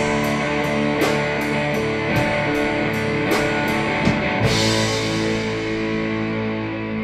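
Live rock band of electric guitars, bass guitar and drum kit playing a slow rock song. The drums keep a steady beat until a cymbal crash about four and a half seconds in. Then the drumming stops and a final held chord rings out, closing the song.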